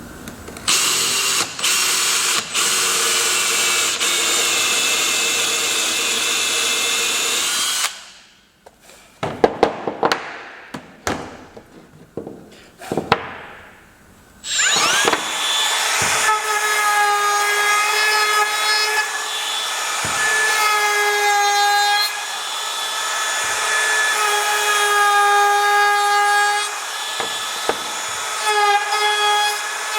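Electric power tool running on wood in long steady stretches, with a few seconds of separate knocks and clicks in between.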